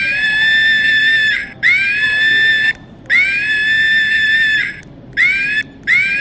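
High-pitched animal calls, each about a second long with a quick rise at the start and then held, repeated five times with short pauses between.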